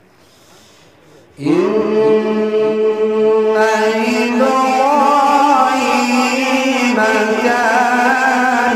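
A male qari beginning melodic Quran recitation (tilawat): a long held note comes in about one and a half seconds in, then the voice climbs and wavers in ornamented runs.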